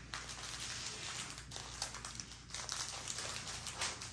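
Small plastic bags of diamond-painting drills crinkling and rustling unevenly as hands handle them and slide them across the canvas.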